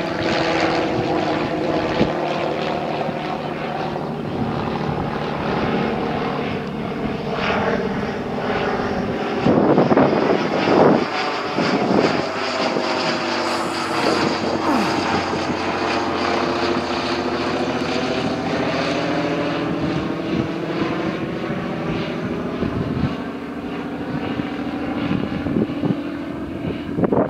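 Hawker Nimrod biplane's Rolls-Royce Kestrel V12 engine running steadily as it flies past overhead, the sound sweeping as the aircraft passes about halfway through. A few brief louder bursts of noise come about ten seconds in.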